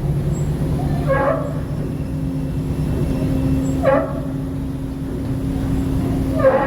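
A steady low engine drone with a constant hum. Three short calls cut through it, about a second in, about four seconds in and near the end.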